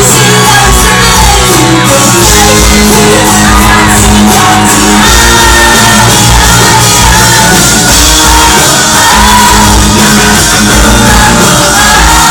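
Live pop-rock band playing loud, with a woman singing lead over electric guitars and drums, and fans shouting and cheering along.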